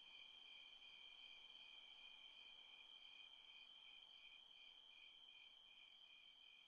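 Insects, crickets by their sound, chirring faintly: a steady high trill with a second, pulsing trill just below it.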